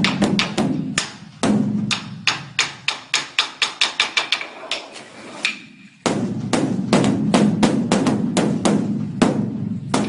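Large Buddhist temple dharma drum (beopgo) beaten by a monk with two sticks in a fast, even run of strokes. The strokes fade out to a brief lull about five and a half seconds in, then start again loud and dense about half a second later.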